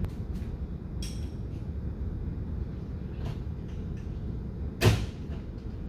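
Metal clinks of work on the car's drivetrain: a light metallic clink with a short ring about a second in and a sharp knock near five seconds in, over a steady low rumble.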